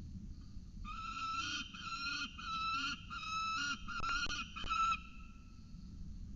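Peregrine falcon calling: a run of about seven repeated pitched notes, each around half a second long, over some four seconds, with a few sharp clicks among the last notes.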